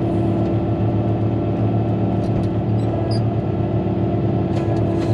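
Caterpillar motor grader's diesel engine running steadily as the machine travels along a dirt road, with a few brief high-pitched squeaks about three seconds in and near the end.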